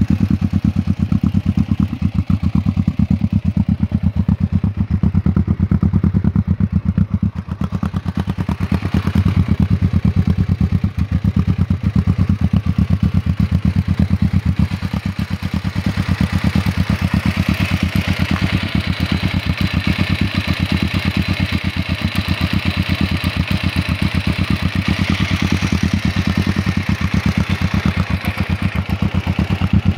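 Kawasaki EN500's parallel-twin engine idling steadily, its exhaust beat an even, fast train of pulses.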